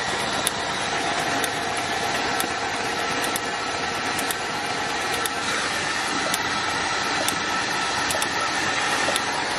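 Starter motor cranking a Chevrolet Silverado engine with its spark plugs out and the fuel relay pulled: a steady whirring with faint ticks about once a second, the engine turning over freely as it clears debris and moisture from the cylinders.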